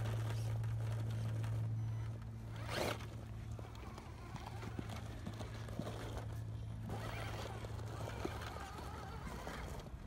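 Axial SCX10 II Deadbolt RC rock crawler's electric motor and geartrain whining steadily under load as it crawls up a steep rock face, with a fine buzzing, zipper-like rasp. There is a short burst of noise about three seconds in, and the whine stops near the end.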